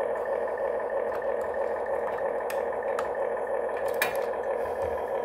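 Huina 1592 RC excavator's simulated engine sound playing from its built-in speaker as a steady idling hum. A few sharp plastic clicks sound over it, the loudest about four seconds in, as a rubber track is worked onto the drive sprocket and rollers by hand.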